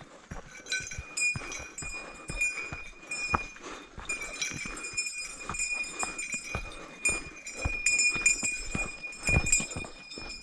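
A small hiker's bear bell jingling over and over as it swings with each stride, over footsteps on a dirt trail.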